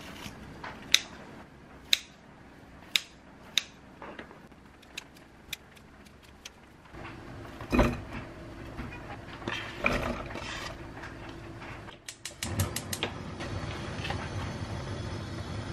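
Kitchen scissors snipping through a fried pollack cutlet over a plastic container: sharp snips about once a second, then softer ones. The cut pieces are then tipped from the plastic tub into a metal pot with a dull thump and a few knocks. After that come quick clicks and a steady rustle of packaging being handled.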